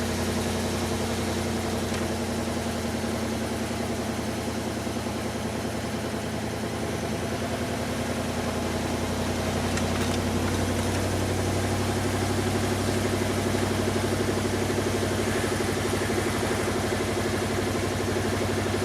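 A vehicle engine running steadily at low revs, getting slightly louder about halfway through.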